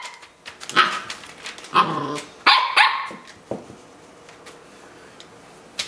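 An 8-week-old puppy barking in short, high-pitched yaps, about four of them in the first three and a half seconds.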